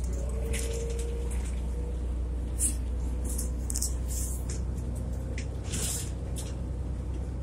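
Inside a moving city transit bus: a steady low engine and road rumble with a faint whine that rises slightly in pitch about a second in, and several brief hisses scattered through.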